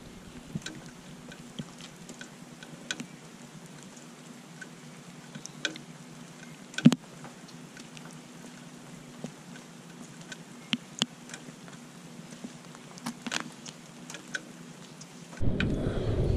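Rainwater dripping and trickling from a downspout into a puddle: scattered, irregular drop ticks over a soft steady hiss, with one louder drop about seven seconds in. Near the end a louder, low rushing noise takes over.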